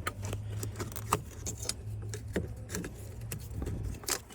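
Scattered small plastic clicks and rattles as a new steering angle sensor is worked onto a 2010 Ford Fusion's steering column, over a steady low hum that stops shortly before the end.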